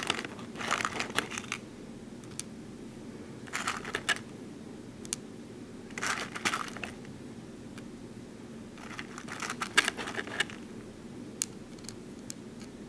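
Small plastic BeadOs beads clicking and rattling against a hard plastic sorting tray and pegboard as fingers pick them out and set them in place. The clicks come in short clusters every second or two over a low steady hum.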